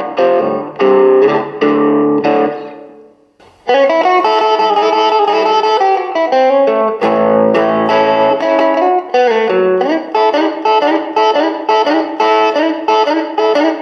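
Jet JS-300 electric guitar played through an amp: rhythmic chords that ring and fade out about three seconds in, then after a brief gap a new passage of quick picked notes and chords.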